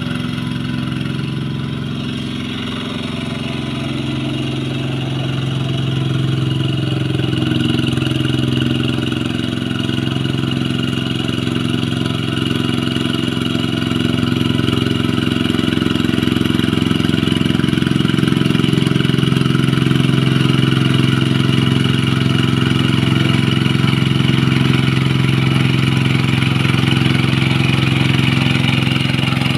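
Kubota walking tractor's single-cylinder diesel engine running steadily as it plows a flooded rice paddy, its note shifting a few times under changing load. It grows louder as the tractor comes closer.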